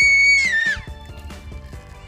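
A girl's high-pitched scream as slime is poured over her head, held for under a second and then falling away, over background music with a steady beat.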